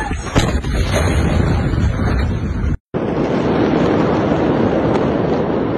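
Loud rumbling roar of a massive explosion recorded on a phone, with a few sharp knocks about half a second in. It cuts off briefly midway and comes back as a steady rushing roar.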